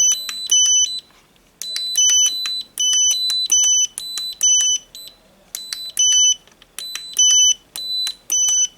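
Radio-control transmitter sounding a repeating electronic alarm: short high beeps alternating between two pitches, in runs of about four with brief pauses between.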